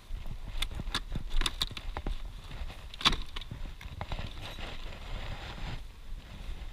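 Wooden beehive boxes and frames being handled, giving a run of sharp clicks and knocks with the loudest knock about three seconds in, over a low rumble.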